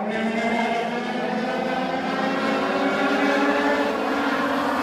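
Several Legends race cars' small motorcycle engines running together on the track. Their pitch rises slowly as the cars accelerate.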